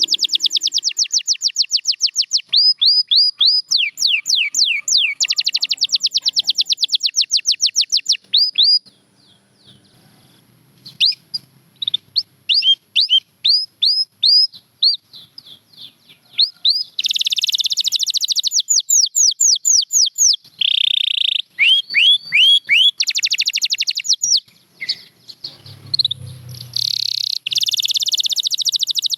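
Domestic canary singing: long, fast trills of rapidly repeated down-sweeping notes, broken by a sparser stretch of scattered chirps about nine seconds in and a short held note later on.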